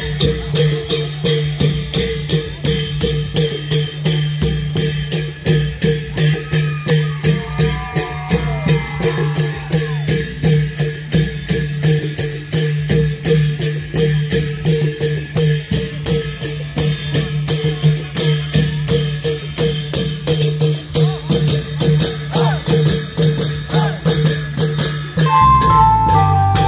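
Thai klong yao long-drum ensemble playing: an even rhythm of about four strokes a second over a steady low drone. Near the end a melody line comes in on top.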